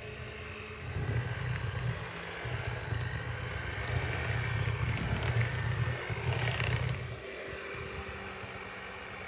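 Electric hand mixer running, its beaters working through thick cake batter in a glass bowl as flour and milk are added. A steady motor hum that gets louder about a second in and eases off near the end.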